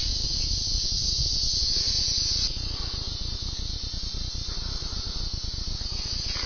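Steady high-pitched buzzing of an insect chorus in summer woods, louder for the first two and a half seconds, over a low rumble from the scope camera being moved about.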